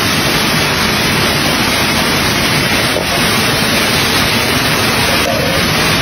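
Steady, loud rushing of running water, an even hiss without a break.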